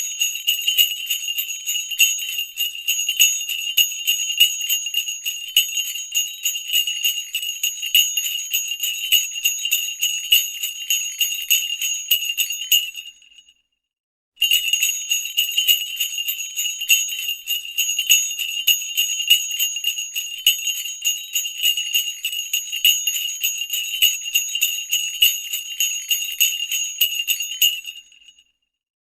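Sleigh bells shaken in a continuous, high-pitched jingle. They ring in two long runs of about thirteen seconds each, separated by a silence of about a second halfway through, and stop again shortly before the end.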